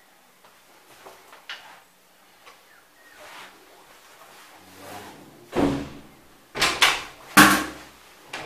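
Interior door being handled: three loud knocks and rattles of the door and its lever handle in the second half, after a few faint clicks.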